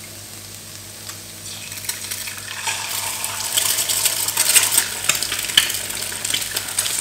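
An egg dropped into very hot, smoking oil in a frying pan. The oil sizzles, and from about two seconds in it grows into a loud, steady crackle of spitting.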